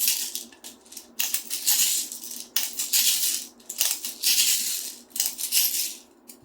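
Airsoft BBs rattling in a BB loader while a pistol magazine is filled, in about five bursts of a second or less.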